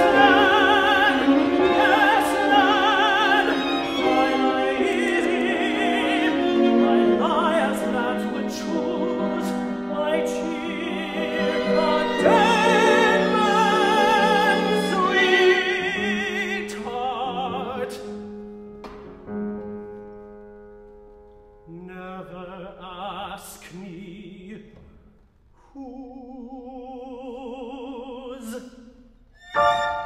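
A tenor singing a slow classical art song with vibrato, accompanied by a string quartet. It is full and loud at first, then after about sixteen seconds drops to a soft passage of short sung phrases over held strings. The ensemble comes in loudly again right at the end.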